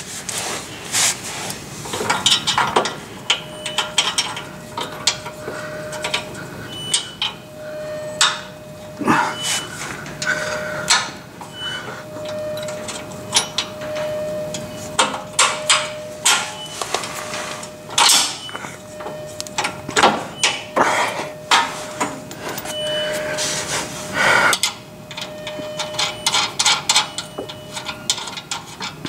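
Irregular metal clinks, knocks and scrapes as a steel frame doubler and its bolt are worked into place inside a Jeep Gladiator's frame rail and a flange nut is started on the bolt by hand. A faint steady hum sounds behind them much of the time.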